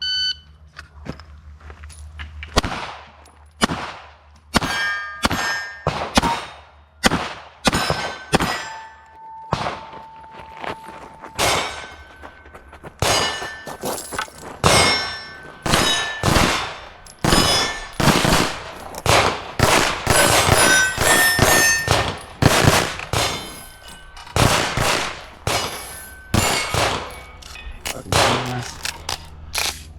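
Pistol shots fired in quick strings at steel plate targets. Each hit is answered by a clang and a ringing of the steel. Near the middle one plate rings on steadily for about two seconds.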